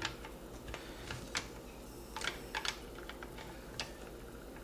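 Faint, scattered clicks and light taps of metal parts in a Marlin 336 lever-action rifle's action as the lever is worked into place and lined up for its screw.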